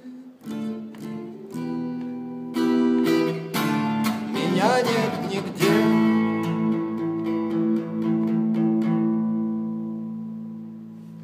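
Acoustic guitar strummed in chords as a song closes. A final chord a little over five seconds in is left to ring and die away slowly.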